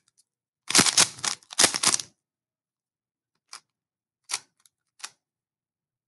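Plastic Rubik's cube being turned by hand: two quick runs of clattering turns in the first two seconds, then a few single clicks of separate turns.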